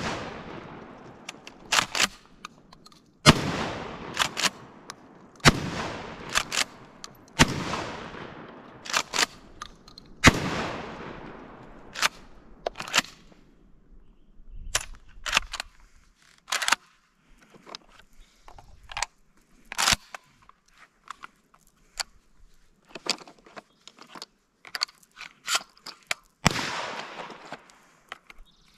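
Benelli SuperNova Tactical 12-gauge pump-action shotgun firing five shots, each with a long echoing tail. Between the shots come short metallic clacks as the pump is cycled, and a longer run of clicks and clacks of handling from about twelve seconds in.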